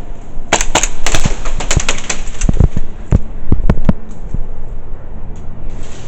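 Airsoft guns firing: an irregular string of sharp cracks and pops over the first four seconds, then it eases off.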